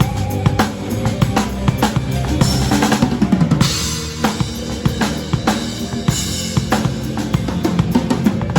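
Pearl Reference drum kit played along to a song, with kick, snare and tom hits in a steady groove. A cymbal rings out for about a second and a half near the middle.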